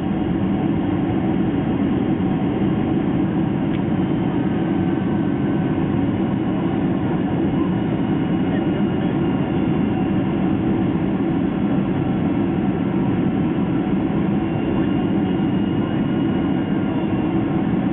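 Steady cabin noise of a Boeing 767-300 airliner in flight, heard from inside the passenger cabin: a deep, even drone of engines and airflow with a few faint steady tones above it.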